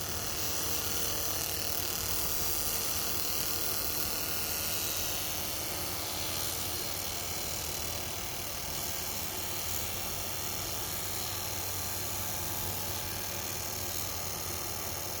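Handheld 100 W pulsed fiber laser cleaner ablating oxide from a weld seam: a steady high-pitched hissing buzz with a low hum beneath.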